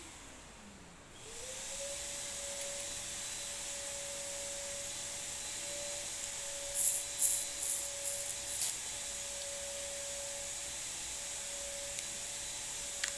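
A small motor spins up about a second in and runs on with a steady whine over a hiss, with a few brief rustles in the middle and a click near the end.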